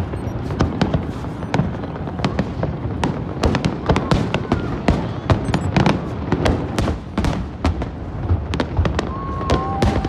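Aerial fireworks display: a dense, rapid string of sharp bangs and crackles from shells bursting, over a steady low rumble. A brief steady whistle sounds near the end.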